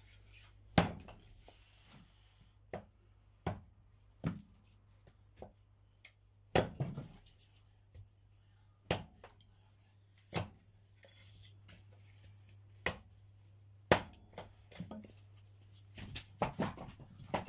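Firewood being worked: a run of sharp wooden knocks and thuds at uneven intervals, one every second or two, the loudest about a second in and a few more strong ones through the middle. A faint steady hum lies underneath.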